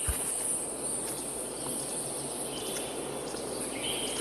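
Insect chorus: a steady, high-pitched buzz that holds unbroken throughout, over a faint even hiss of outdoor noise.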